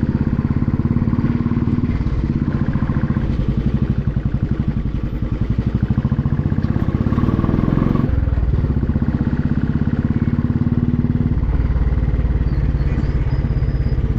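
Motorcycle engine running under way, a steady pulsing engine note that shifts about eight seconds in.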